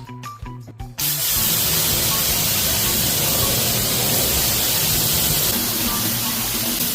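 Water sprayer hissing steadily as it cleans air conditioner parts, starting abruptly about a second in, with background music underneath.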